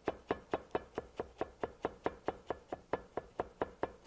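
Chef's knife chopping fresh parsley on a wooden cutting board: a steady run of sharp knocks, about four to five a second.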